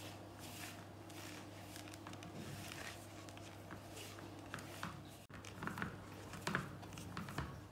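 Hands kneading gram-flour (besan) dough in a bowl: faint, irregular squishing and rubbing strokes as the crumbly flour and water are pressed into a dough.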